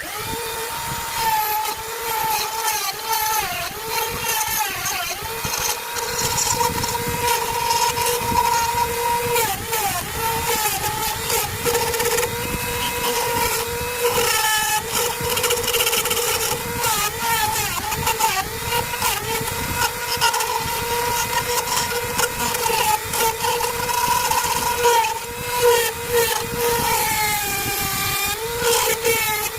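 Electric wood lathe running with a steady motor hum. Its pitch sags briefly several times, as when a tool bites, and rough scraping noise runs over it.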